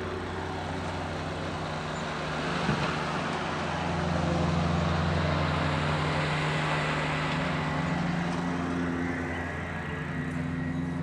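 A car's engine and tyres humming steadily, swelling louder in the middle as the vehicle passes by, then easing off.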